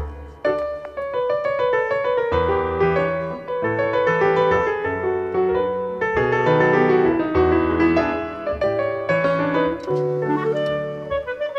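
Instrumental background music led by piano, with chords and a moving bass line.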